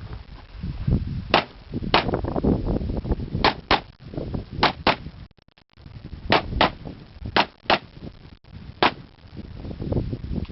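Glock 34 9 mm pistol fired rapidly, about eleven shots, mostly as quick pairs fired about a quarter second apart: double taps on targets through a practical shooting stage.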